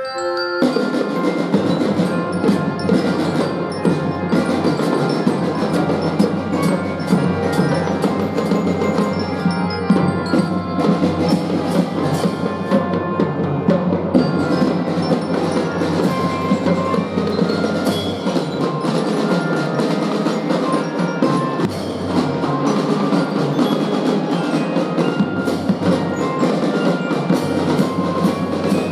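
Children's fife-and-drum band playing: a bright glockenspiel-type mallet melody over snare and bass drum beats, the full band coming in just after the start and playing steadily on.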